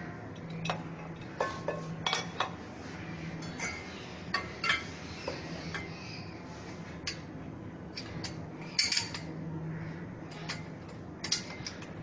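Scattered clinks and clicks of small metal parts being handled and set down, irregular, with a few louder knocks.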